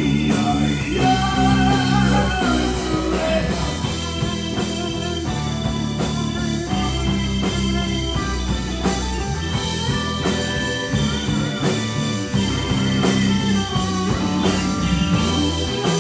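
Live rock band playing an instrumental break: guitar lead over bass and a steady drum beat.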